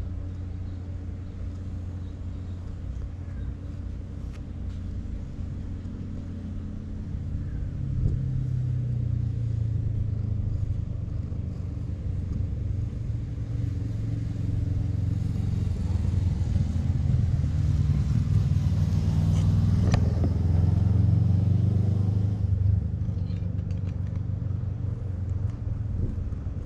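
Cat purring steadily and loudly close to the microphone while being stroked: a contented purr. It grows louder about a third of the way in and is strongest in the second half.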